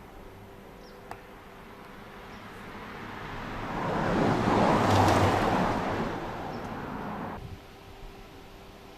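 A vehicle passing by: a broad rushing noise swells to a peak about five seconds in, eases off, then cuts off suddenly a couple of seconds later.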